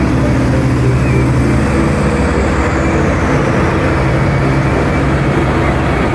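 Caterpillar 797F mining haul truck's diesel engine running as the truck drives by, a loud steady low drone.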